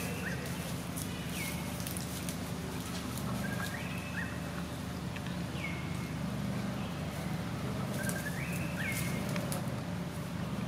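Short, high-pitched calls, each a quick rising or stepped note, repeated every second or two over a steady low hum.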